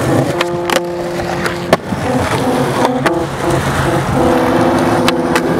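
Skateboard wheels rolling over concrete, with several sharp clacks of the board at uneven moments, under background music of held notes.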